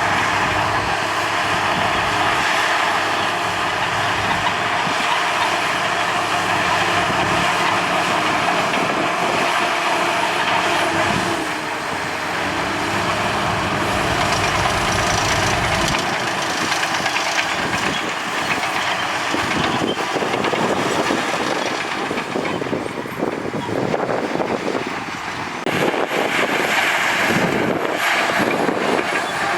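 Crawler bulldozer at work: its diesel engine runs steadily under load while the steel tracks clank. The low rumble drops away about halfway through, and more irregular clatter follows in the later part.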